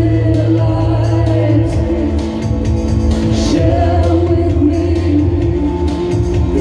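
Live band music: electric guitar and synth keyboard over held low notes and a steady beat, with singing over it.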